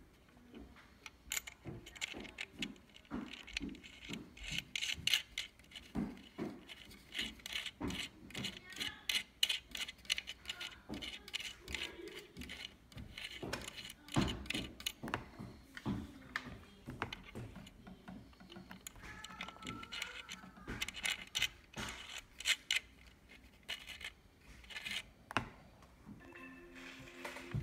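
A small metal nut being turned by hand onto a threaded metal bushing in a blender's plastic base, giving a run of irregular light clicks and scrapes of metal on metal and plastic. Music comes in about a second before the end.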